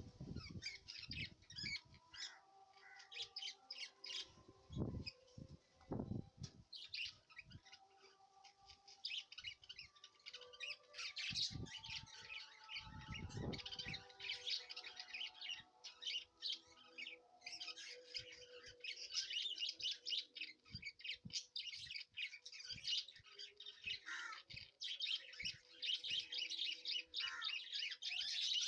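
Faint chirping of small birds: many short, quick calls in dense runs, busiest in the second half, with a few low thumps in between.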